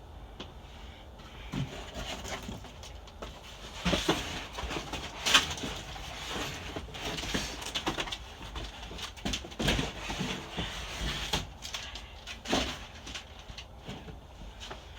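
Cardboard boxes being shoved and moved by hand: irregular thumps, knocks and scraping rustles, the loudest knock about five seconds in.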